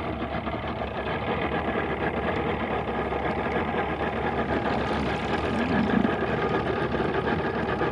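Outboard motor of a bass boat idling steadily, with a fast even chatter.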